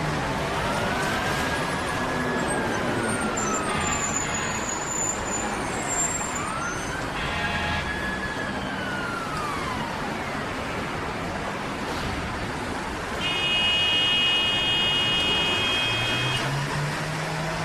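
City street ambience: steady traffic noise, with a siren wailing twice in long, slow rise-and-fall sweeps. Near the end a horn sounds, held steady for about three seconds.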